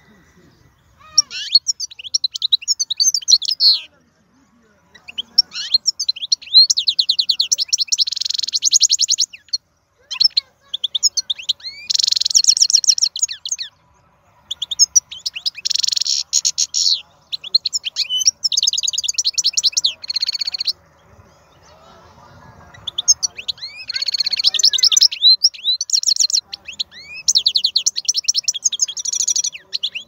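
Wild-caught European goldfinch singing: phrases of fast twittering notes and rapid buzzy trills, broken by short pauses.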